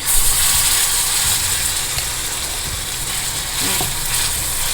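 Thick rice-and-lentil adai batter poured into hot oil in a heavy-bottomed pan: a loud sizzle that starts suddenly and keeps crackling steadily as the batter fries.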